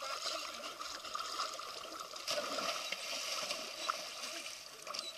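Dogs swimming in a pool, stirring up steady splashing and sloshing water.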